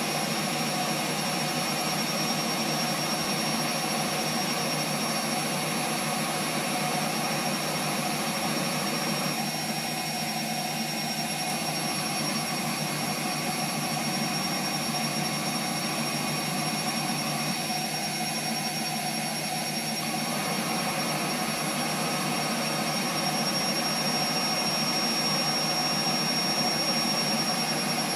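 Bosch Maxx 7 front-loading washing machine spinning: a steady rushing drum noise with a constant high whine, very loud, rising slightly near the end. There is excess foam in the drum, a mild suds lock, and the drum is held at about 900 rpm instead of the 1400 set.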